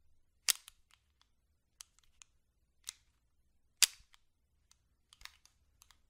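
Sharp metallic clicks and snaps of a Springfield Armory 1911 pistol's action being worked by hand. Two loud snaps come about half a second and nearly four seconds in, with lighter clicks between them and a quick cluster of clicks near the end.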